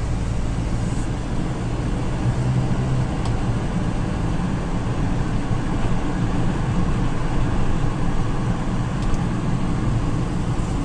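Steady engine and tyre noise of a car driving along at road speed, heard inside the cabin, with a low hum.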